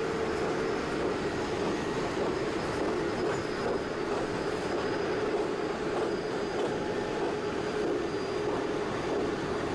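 China Railway CRH high-speed train running on its track: a steady rail rumble with a steady hum in the middle register and faint higher whines, unchanging throughout.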